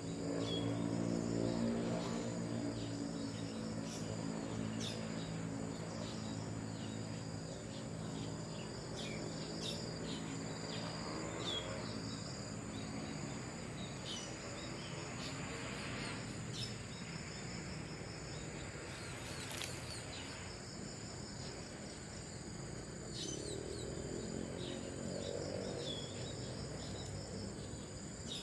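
Steady high insect chorus of crickets or cicadas, with short, scattered high chirps from a flock of Asian glossy starlings (cucak keling) feeding in a tree. A low hum sits underneath, strongest at the start and again near the end.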